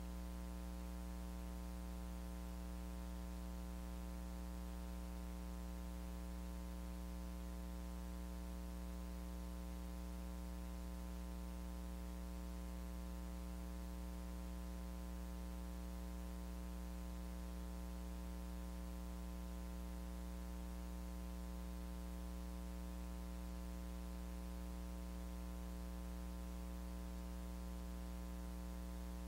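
Steady electrical mains hum with a stack of overtones over a faint hiss, unchanging throughout, with no voices audible.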